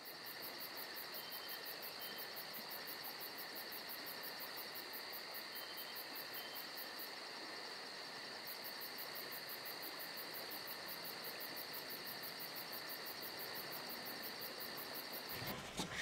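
Steady chorus of insects: a high, continuous trill with fast, even pulsing that does not change, cutting off abruptly near the end.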